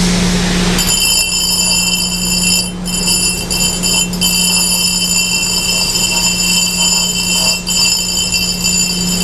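Reid surface grinder's spindle running with a steady hum, joined about a second in by a high-pitched steady squeal from the 60J grinding wheel that dips briefly a few times. The wheel's side is being relieved so that its corner does the grinding.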